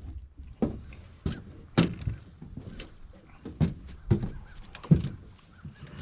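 Footsteps and thumps on a boat's deck as someone walks across it: a series of irregular knocks, about seven in all.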